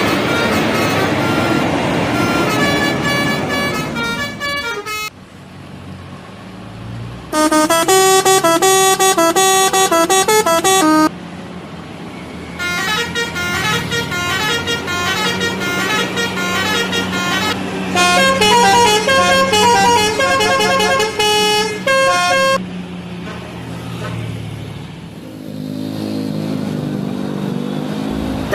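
Indonesian bus telolet horns: multi-tone horns playing short jingle-like melodies in three bursts, the last one the longest and changing tune several times, with a steady low hum beneath.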